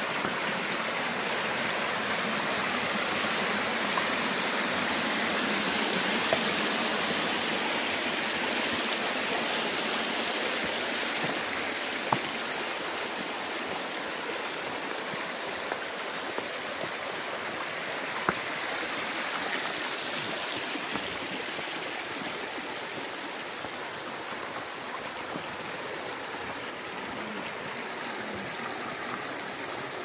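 Shallow rocky stream rushing and splashing over small cascades, a steady water noise that grows gradually softer through the second half.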